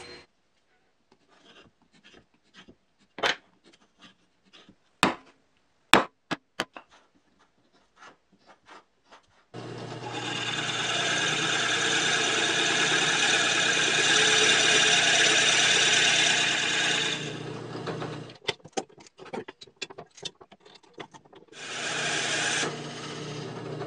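Drill press spinning an adjustable circle cutter into plywood to bore a 52 mm bearing seat: a loud steady run with a low motor hum under the cutting noise for about eight seconds, then it stops, and it cuts again briefly near the end. Before it, only a few sharp clicks and knocks.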